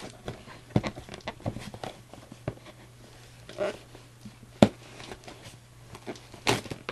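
Dull knife cutting the packing tape and cardboard of a shipping box: scattered scrapes and clicks, with a sharper knock about four and a half seconds in and another near the end.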